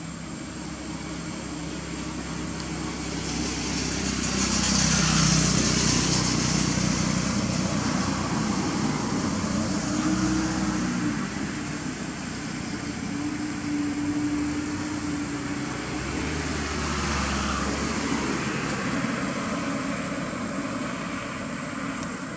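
Motor traffic passing: a steady low rumble and hiss that swells as a vehicle goes by about five seconds in, and again around seventeen seconds.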